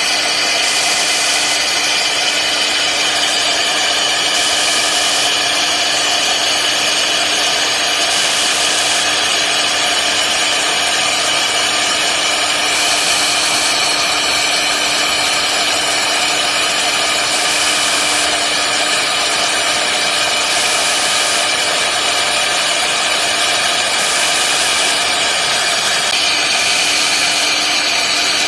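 CNC router spindle running steadily with a small end mill cutting through acrylic sheet: a constant whine over a rasping cutting hiss whose brightness shifts every few seconds.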